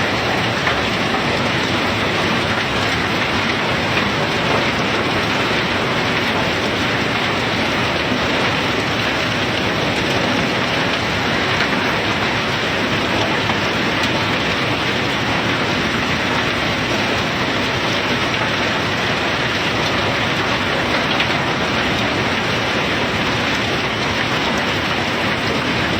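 Self-unloading cargo ship discharging its bulk load: a loud, steady rushing noise of the unloading that holds without a break.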